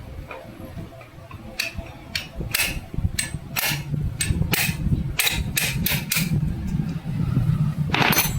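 Sharp metal clicks and knocks at irregular intervals, about a dozen in all with a louder one near the end, from tools and engine parts being handled during work on the engine's timing gears.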